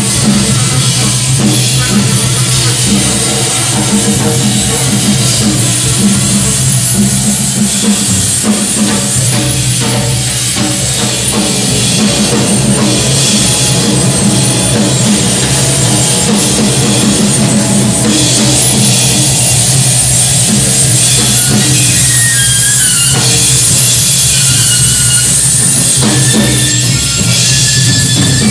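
Live noise music played loud as a dense wall of sound: a drum kit pounding over droning electronics and saxophone, with a steady low drone underneath. Short high stepped tones come in near the end.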